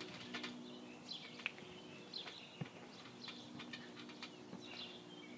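Faint chirping of birds over a steady low hum, with scattered light clicks and a soft thud from a trampoline being bounced on.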